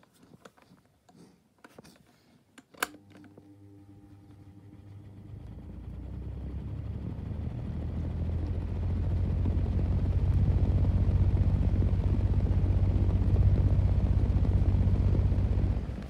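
Schallen 12-inch desk fan switched on with a click, its motor humming as the blades slowly get up to speed, a slow spin-up the owner puts down to its really bad bearings. The noise builds over several seconds into a loud, steady low rumble and drops away shortly before the end.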